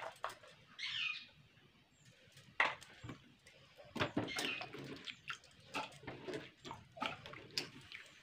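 Scattered clinks and knocks of steel kitchenware, with water sloshing and dripping as diced radish is scooped by hand from a steel bowl of water. The clatter gets busier from about halfway through.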